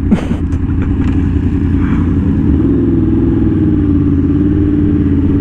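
Yamaha R1M's crossplane inline-four, breathing through a slip-on exhaust with the catalytic converter still in place, running steadily under way at a cruise with only small changes in engine speed. A short sharp clatter comes right at the start.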